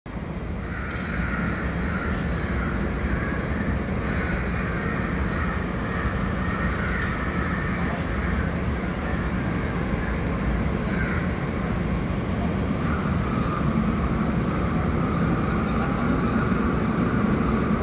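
Steady ambient noise of a busy railway station platform: a constant low rumble and hum with indistinct voices.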